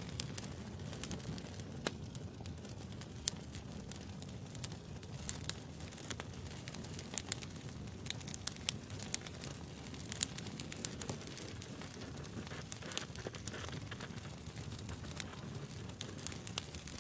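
Wood fire burning with irregular sharp crackles and pops over a low steady hiss and rumble of the flames; the pops come thickest in the middle.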